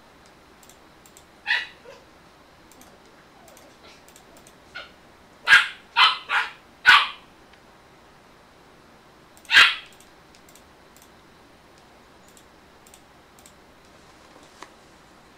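A dog barking in short sharp barks: one about a second and a half in, a quick run of four around five to seven seconds in, and one more near ten seconds.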